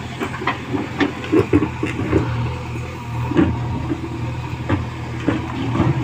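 JCB 3DX backhoe loader's diesel engine running steadily under working load, while the backhoe bucket scrapes and knocks against rocks in wet mud, giving many short irregular clanks.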